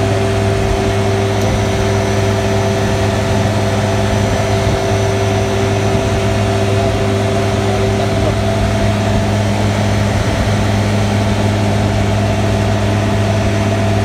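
Milk vat refrigeration unit's R404A compressors running: a steady machine hum with a few held tones.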